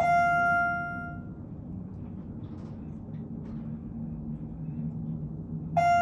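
Elevator chime dinging twice, once at the start and again near the end, each a single bell-like tone that rings out for about a second. Between them, the steady low hum of the elevator car in motion.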